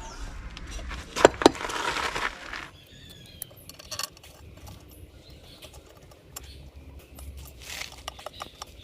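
Metal clicks and clinks with handling noise as the cast-metal housing of an old ceiling fan motor is fitted back together and its screws are tightened. Two sharp clicks come about a second in, followed by a short scrape, then quieter scattered ticks.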